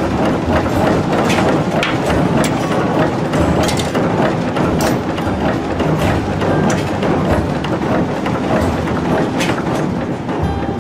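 Forge shop noise: heavy machinery running steadily, with irregular sharp clanks and knocks of metal on metal.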